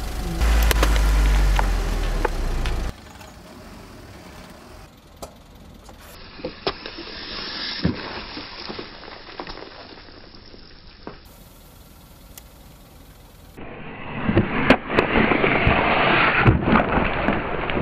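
Car tyre rolling onto and crushing a watermelon rind stuffed with a Pepsi bottle and a roll of Mentos. The car's engine rumbles low for the first few seconds, then the crushing gives crackling with scattered sharp cracks. The crackling is densest and loudest near the end.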